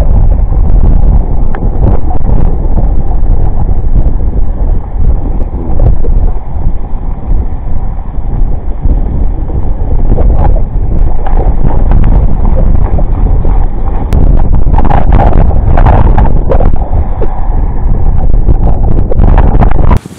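Strong wind buffeting the microphone: a loud, low, unsteady rush of noise, with a few small knocks and clatters about two-thirds of the way through. It stops abruptly just before the end.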